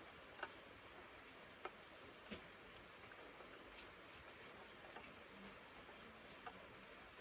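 Light rain falling: a faint steady hiss with scattered single drops ticking at uneven intervals, the sharpest about half a second in.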